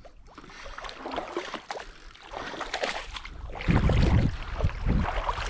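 A large perch splashing and thrashing at the surface as it is reeled in through shallow water. About three and a half seconds in it gets louder, and wind begins buffeting the microphone.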